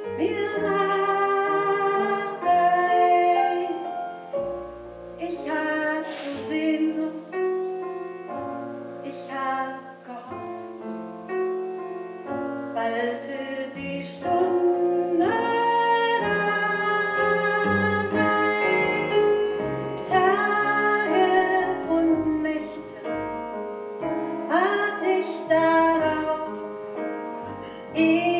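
A woman singing a 1920s cabaret song with vibrato, accompanied by piano and upright double bass.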